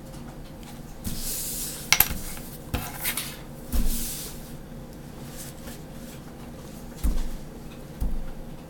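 A pen drawing lines along the edge of a clear plastic ruler on paper, with short scratches about a second in and near four seconds. In between come sharp clicks, and there are low knocks as the ruler is shifted on the wooden tabletop, two of them near the end.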